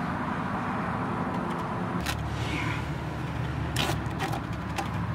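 Box-cutter blade cutting the excess screen mesh along the spline of a pool-enclosure screen frame: a few short scratchy clicks and rasps over a steady low background hum.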